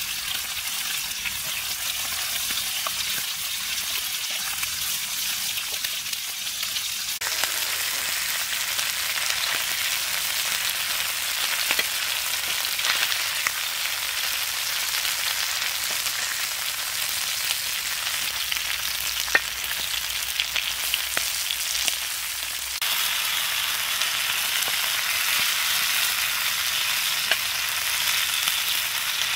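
Marinated quail pieces frying in butter in a pan: a steady sizzle with small crackles and pops, getting louder twice, about 7 s in and again about 23 s in.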